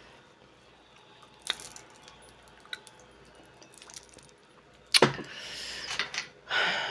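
Mussel and clam shells clicking as they are handled. A few light clicks come first, then a loud clack about five seconds in, followed by a second or so of clattering, rustling handling noise.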